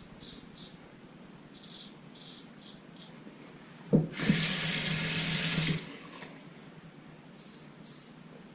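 A water tap turned on with a knock about four seconds in, running for about two seconds and then shut off. Before it, soft repeated short swishes.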